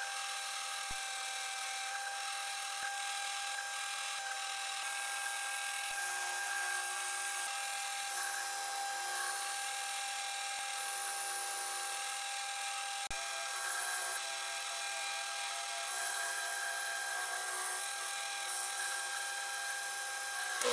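Milling machine spindle running with a steady whine while a drill and end mill cut holes and slotted holes through a welded steel bracket.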